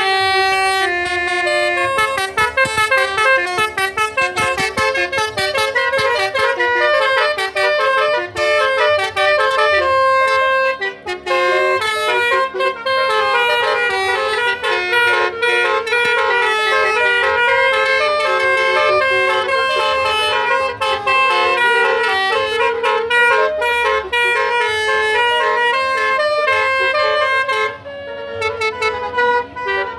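Basuri telolet musical car horns playing fast multi-note tunes, the notes changing several times a second over a steady low hum, with a short break about a third of the way in and another near the end.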